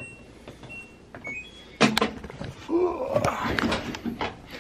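Washing machine control-panel beeps, several short electronic tones at different pitches as its buttons are pressed, then a sharp knock just under two seconds in, followed by a voice-like sound with a bending pitch near the end.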